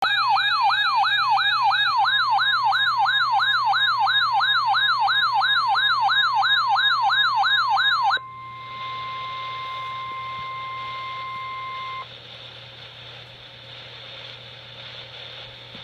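Emergency alert tones from a weather radio: a loud electronic warbling alarm, rising and falling about three times a second, then a steady single-pitch tone, the NOAA Weather Radio warning alarm tone, for about four seconds. It cuts off, leaving faint radio hiss.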